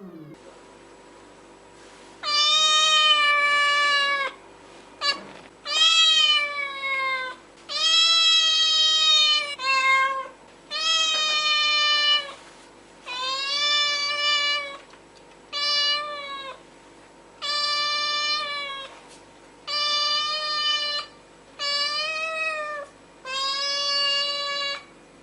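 A cat meowing repeatedly: a long series of drawn-out, high-pitched meows, one every two seconds or so, starting about two seconds in, over a faint steady hum.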